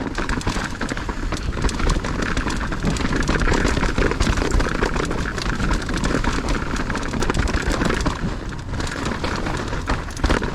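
Mountain bike riding down a dirt trail: a steady rush of tyre noise and dense crackling and rattling over rough ground, with heavy low rumble on the camera microphone.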